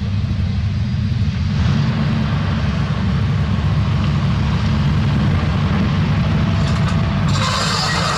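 Heavy diesel construction machinery running, a steady low rumble. About seven seconds in, the sound changes abruptly and a brighter hiss joins.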